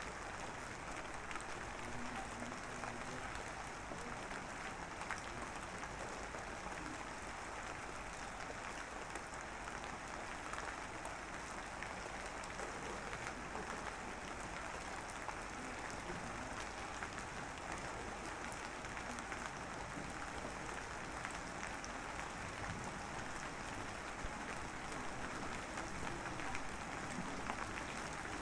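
Steady drizzling rain: a dense, even patter of fine drops hissing on a surface, without change in strength.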